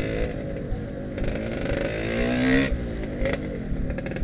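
Yamaha RX-King's two-stroke single-cylinder engine with a Mbah Darmo aftermarket exhaust, ridden in traffic. The revs climb for about a second and a half, then fall away sharply as the throttle closes, under three seconds in.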